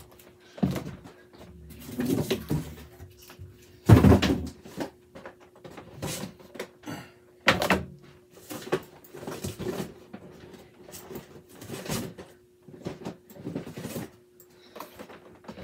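Rummaging through a shipping box of boxed toys: packaging rustling and cardboard boxes knocking as they are handled and set down. The loudest knock comes about four seconds in and another sharp one a few seconds later.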